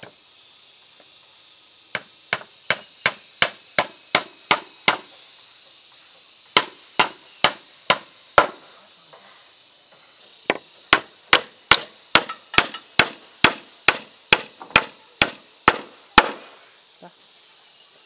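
Hammer blows struck in quick, even runs, about three a second: three runs of sharp strikes with short pauses between them.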